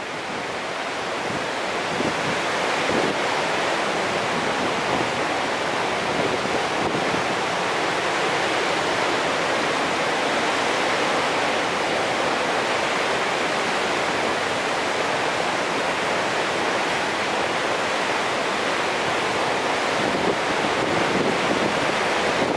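Large, high-volume river waterfall rushing steadily, a dense, even hiss-like noise that swells a little over the first two seconds and then holds level.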